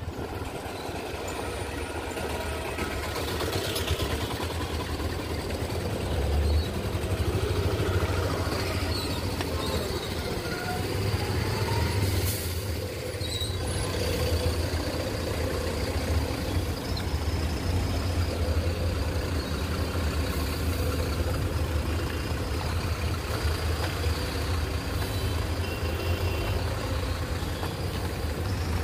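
Road traffic backed up in a jam, with the engines of trucks and other heavy vehicles running in a steady low rumble.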